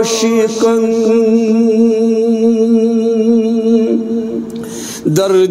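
Male voice singing a Kashmiri manqabat unaccompanied by instruments, holding a long wavering note on the word "aashiqan" over a steady drone. The note fades about four seconds in, and the next line starts near the end.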